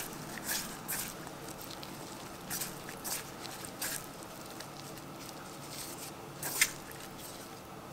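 Dressed watercress being tossed by a gloved hand in a stainless steel bowl: soft wet rustling and squishing with scattered light crackles. There is one sharper click a little past six and a half seconds in.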